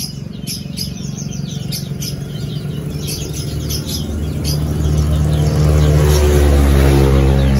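A motor vehicle's engine running with a low hum that grows louder about halfway through and is loudest near the end, over small birds chirping.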